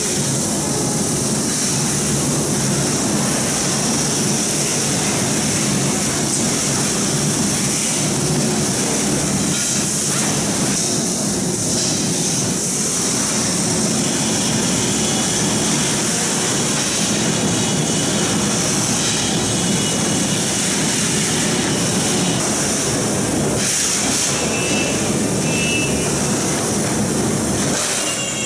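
Steady, loud din of an electric-scooter assembly workshop: industrial ventilation fans and the line running together, with a constant hiss over it.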